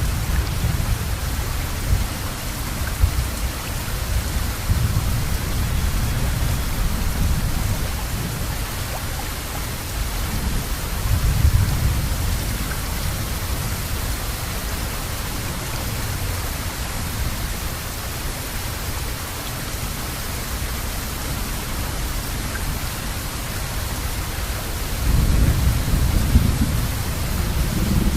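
Steady heavy rain with rolling thunder: low rumbles swell and fade several times, loudest about eleven seconds in and again near the end.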